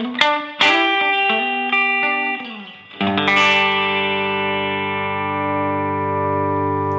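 Telecaster electric guitar on its bridge pickup through a clean amp and a DOD 280A compressor pedal: a quick run of picked single notes, then a chord struck about three seconds in that rings on with little fade.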